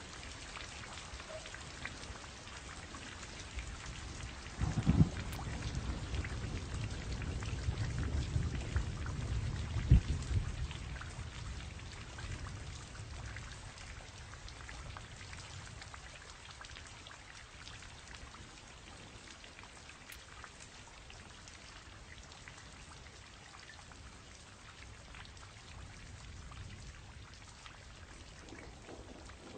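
Steady rain, with many individual drops heard in the hiss. A low roll of thunder starts about five seconds in, with a sharper clap near ten seconds, and dies away a couple of seconds later, leaving the rain alone.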